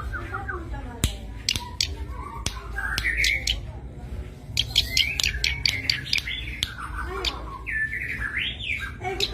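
Zitting cisticola (cici padi) singing and calling: a busy run of sharp clicking notes mixed with quick chirps, with short notes that rise and fall in pitch in the second half.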